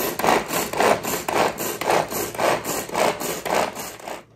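Royal Prince hand-operated food chopper being worked with quick, even strokes, about two or three a second, its blades chopping boiled eggs and carrot. The strokes stop just before the end.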